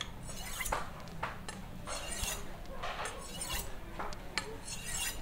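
Jianfeng fine-cut sharpening steel drawn again and again along the edge of a Vanadis 8 steel golok: a series of short, high-pitched metal-on-metal scrapes, about two a second. The strokes are taking off the burr left by the whetstones.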